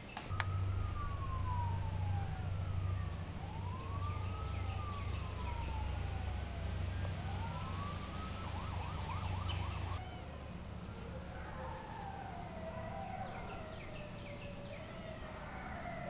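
A siren wailing, its pitch sliding slowly up and down, with a quick warble near nine seconds. A steady low hum runs under it and stops about ten seconds in, after which the wavering pitched sound carries on.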